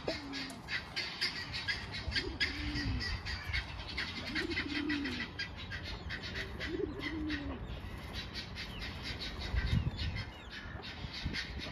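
Domestic pigeons cooing: four low coos, each rising then falling in pitch, a couple of seconds apart in the first two-thirds. Under them runs a steady chatter of quick, high chirps from other birds.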